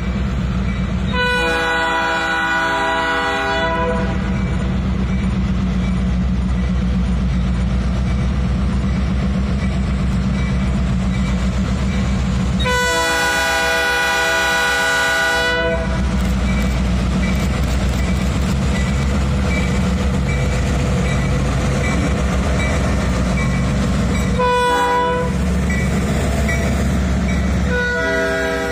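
Indiana Harbor Belt diesel freight locomotives approaching and passing, their engines rumbling steadily, while the lead unit sounds its air horn: two long blasts, a short one and a final long one starting near the end, the standard grade-crossing signal.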